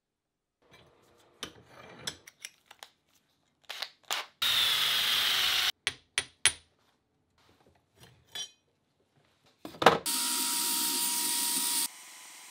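Knocks and clicks of a steel ball peen hammer and tools being handled, broken by two loud spells of power sanding on the hammer head, each about a second and a half long. The second spell is a belt sander, which runs on more quietly after the grinding stops near the end.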